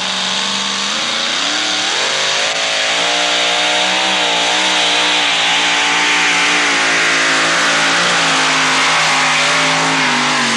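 Two-wheel-drive pulling truck's engine at full throttle, hauling a weight-transfer sled down the track. It revs up about a second in, then holds high with a wavering pitch, and breaks off suddenly at the end.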